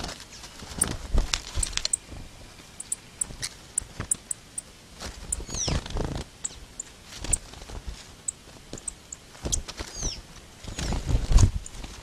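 Small trapped birds calling: many short, high chirps and a few quick falling call notes, about six and ten seconds in. Rustling and knocks come in between as they move about in dry straw inside a netted trap.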